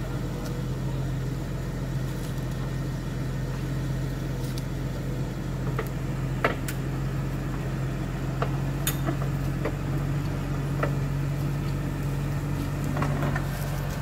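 Vehicle engine idling steadily at an even pitch, with scattered light clicks and ticks.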